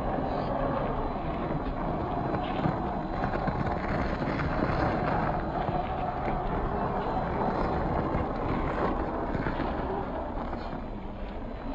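Electric drive of a 1/10 scale RC crawler whining as it climbs: a 540-size 45-turn brushed motor and geared drivetrain, the pitch drifting up and down with the throttle. Scattered small crunches and ticks come from the tyres working over loose sand and stones.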